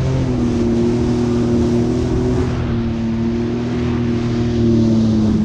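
Yamaha VX Deluxe personal watercraft under way at a steady speed, its engine and jet pump giving a steady droning tone over rushing, splashing water. The pitch dips briefly near the end.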